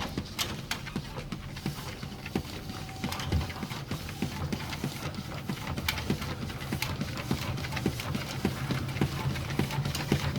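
A dog's paws and claws pattering and clicking irregularly on a dog treadmill, over a steady low motor hum.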